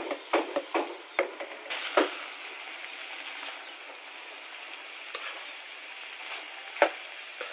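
A metal spatula clacking and scraping against a steel wok, a quick run of knocks in the first two seconds, as grated coconut is stirred into frying minced pork. After that a steady sizzle carries on, with one louder clack near the end.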